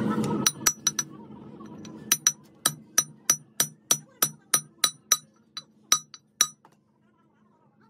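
Hammer blows ringing on a steel truck countershaft seated in its splined gear section, driving the two pieces together: a few quick strikes, then a steady run of about three sharp, clinking blows a second that stops about six and a half seconds in.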